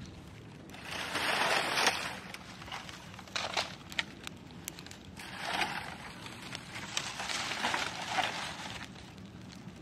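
Dry fronds rustling and crunching in three bursts as they are heaped onto a small fire, with a few sharp crackles from the burning leaves in between.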